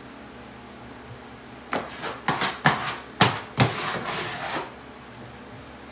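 A flat plastic smoothing tool swept firmly over freshly hung wallpaper, about six quick rubbing strokes from a couple of seconds in until past the middle, a few of them starting sharply.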